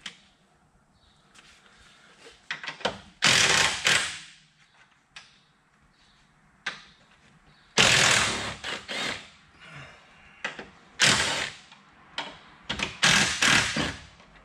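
Handheld cordless power tool running in several short bursts of about a second each, spinning bolts out of the truck's radiator support and fender brackets, with small metal clicks and knocks in between.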